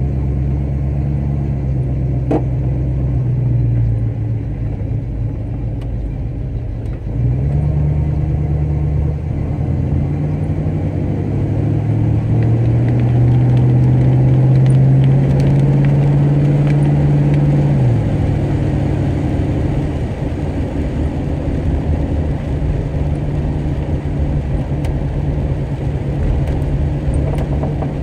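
A 1965 Pontiac LeMans engine heard from inside the car while driving. The engine note climbs about seven seconds in and holds a steady drone, then falls sharply about eighteen seconds in and runs on at a lower pitch.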